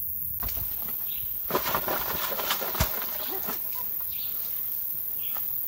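Leaves and branches rustling and crackling in dense garden vegetation, loudest for a second or two in the middle with a few sharp snaps, while a bird gives a few short chirps.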